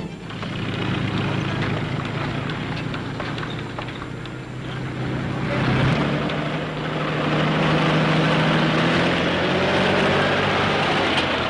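Truck engine running with a steady low drone, growing louder and rougher about six seconds in as it pushes through deep snow.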